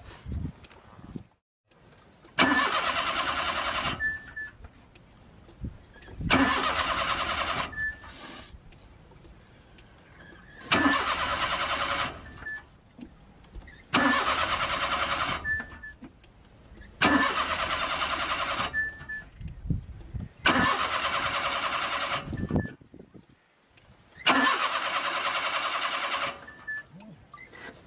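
Car's starter cranking the engine in seven short attempts, each a second or two long and a few seconds apart. The engine fails to catch: a car that won't start.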